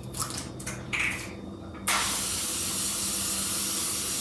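Aerosol cooking spray can sprayed in one continuous hiss of about two and a half seconds, starting about two seconds in, coating a baking pan. A few light handling clicks come before it.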